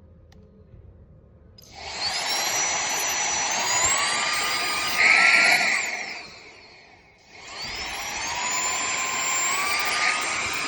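Cordless handheld vacuum cleaner's motor switching on with a rising whine and running, briefly louder, then spinning down about five seconds in and starting up again with the same rising whine.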